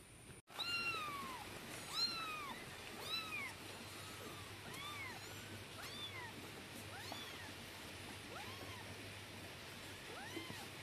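Young kittens mewing over and over: about nine short high mews, each rising and falling in pitch, roughly one a second, the first few loudest.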